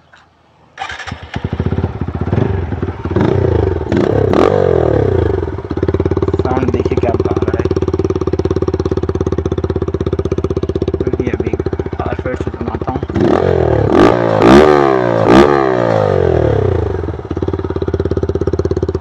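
TVS Apache RTR 160's 159.7 cc single-cylinder engine, breathing through a modified silencer that makes it loud, starts about a second in and idles steadily. It is revved in quick blips around three seconds in and again in several sharp blips around fourteen seconds in, settling back to idle each time.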